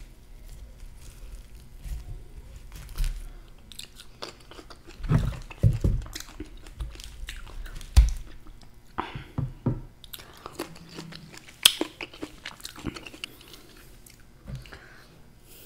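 Close-miked chewing, biting and lip smacking as a person eats cape gooseberries (physalis), with irregular sharp mouth clicks and pops, the loudest about eight and twelve seconds in.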